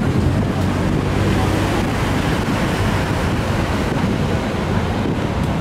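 Steady rushing noise of wind buffeting the microphone over breaking surf, with no separate events.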